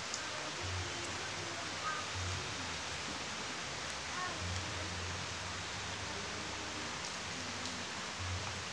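Steady even hiss.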